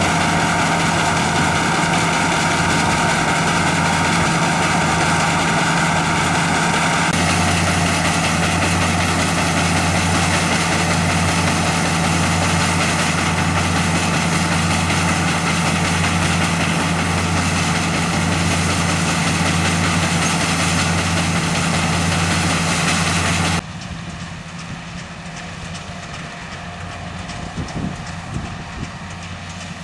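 Braud 2065 combine harvester running steadily under load while cutting and threshing barley, its engine and threshing machinery making a continuous drone. About three-quarters of the way through, the sound drops suddenly to a quieter, more distant level.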